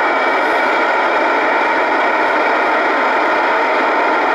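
Steady FM static hiss from a communications receiver tuned to the SO-50 satellite's 436.78 MHz FM downlink, with the squelch open and no station coming through.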